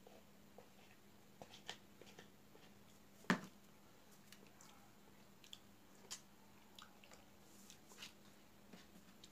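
Quiet sounds of eating by hand: curry poured onto rice and squished together with the fingers on a brass plate, with scattered soft clicks. One sharper knock comes about three seconds in.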